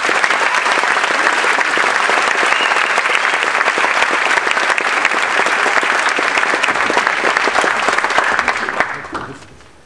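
Audience applauding steadily, fading out about nine seconds in.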